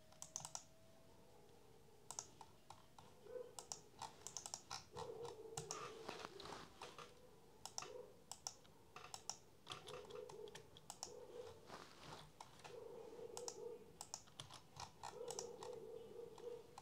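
Faint, irregular clicking of a computer keyboard and mouse, with several short low buzzy stretches between the clicks.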